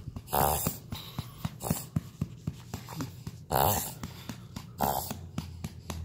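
Shih Tzu reverse sneezing: a few loud, forceful snorting gasps drawn in through the nose, each about half a second long and spaced irregularly. It is a reverse sneeze, common in small dogs with narrow airways and not harmful.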